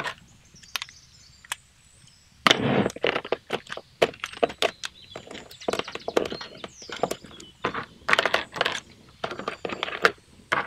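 Hard clear plastic clicking and clattering as a plastic storage box and its lid are handled and moved: a couple of lone clicks, then from about two and a half seconds in a busy run of sharp clicks, knocks and short scrapes.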